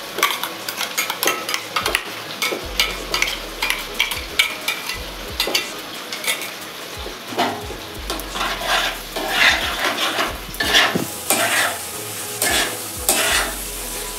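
Onion-garlic paste and ground spices frying in a nonstick kadai, sizzling while a metal spatula stirs and scrapes against the pan. From about halfway the scraping strokes come louder and regular, roughly two a second.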